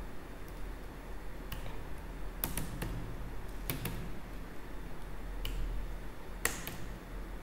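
Computer keyboard keys clicking as text is typed: about ten separate keystrokes at irregular spacing, the sharpest one near the end, over a low steady hum.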